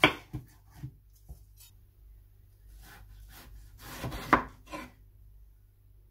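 Chef's knife cutting through a peeled cooking apple and knocking on a wooden chopping board: a sharp knock at the start, a few light taps, then a couple of louder knocks about four seconds in.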